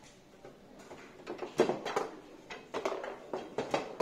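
Foosball game in play: sharp clacks of the ball being struck by the rod men and hitting the table walls, with the rods knocking against the bumpers. Fairly quiet for the first second, then several quick clusters of knocks.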